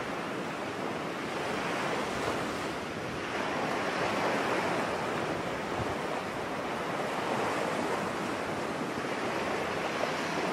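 Small waves washing onto a sandy beach, a steady surf hiss that swells and eases gently.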